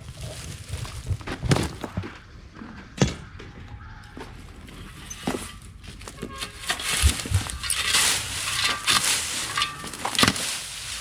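Dry cut bushes and branches being gathered and piled by hand: rustling of dry leaves, twigs snapping and scattered thuds, the rustling growing denser in the second half.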